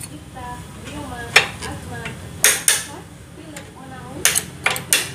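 Metal clinks and scraping as the long engine-mount bolt is worked out through a Honda Astrea Grand's frame, with a handful of sharp knocks: one about a second and a half in, two close together halfway, and a cluster near the end.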